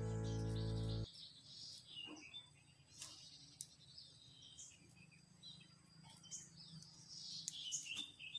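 Background music that stops abruptly about a second in, leaving faint birdsong: short, repeated chirps and calls from several birds.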